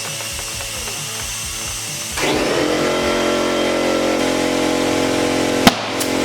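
Air compressor pumping air into a trailer tire to seat its bead. About two seconds in the compressor motor kicks in and runs with a steady hum. Near the end comes a single sharp, loud pop as the tire bead snaps onto the rim.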